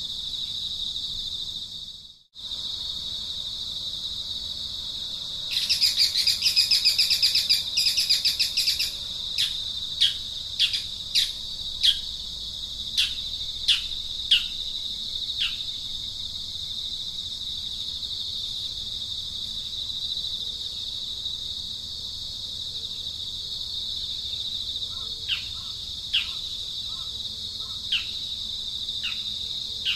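Steady high-pitched insect drone with birds calling over it: a run of rapid chirping for about three seconds, then a string of sharp, falling chirps, with a few more near the end. The drone cuts out for a moment about two seconds in.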